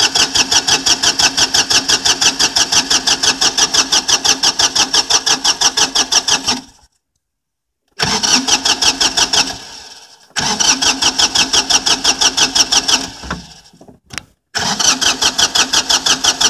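Compact diesel tractor engine cranked on its starter in four separate attempts, a rhythmic chugging of about five beats a second, with short pauses between tries. It never catches: a failed cold start.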